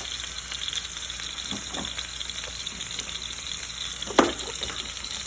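Wagyu rib eye steak searing in hot vegetable oil in a pan, sizzling steadily, with one sharp knock a little after four seconds in.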